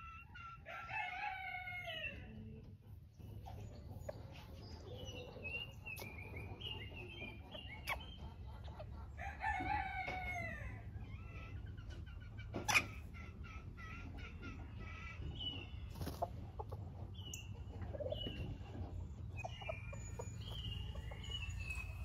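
Rooster crowing twice, about a second in and again near ten seconds, with hens clucking and chirping in between over a low steady rumble. A single sharp click about halfway through.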